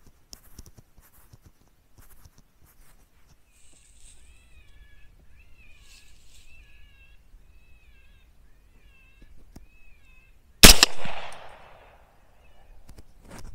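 An electronic predator call plays high, wavering squealing calls over and over, then a single loud rifle shot cracks out, with a trailing echo, near the end.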